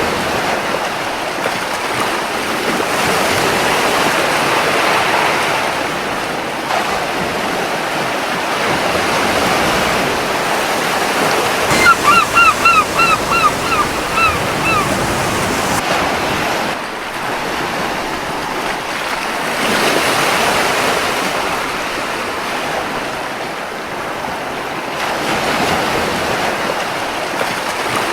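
Sea waves breaking and washing onto a beach, swelling and easing every few seconds. About halfway through, a seagull gives a quick run of eight or so short calls lasting about three seconds.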